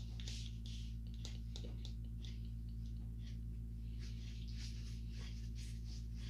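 A steady low hum with many faint, irregular clicks and rustles over it.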